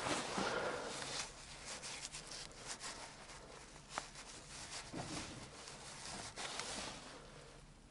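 Rustling and rubbing handling noise, loudest in the first second, with scattered small clicks and one sharp click about four seconds in.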